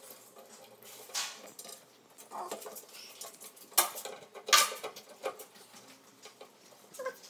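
Screwdriver driving a screw to fasten a steel bar handle to a cabinet door: irregular small metallic clicks and clinks, the loudest a little under four and about four and a half seconds in.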